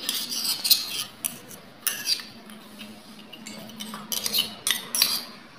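Miniature stainless-steel tongs clinking and scraping against small steel bowls of a toy kitchen set. The clinks come in short clusters: in the first second, about two seconds in, and again around four to five seconds in.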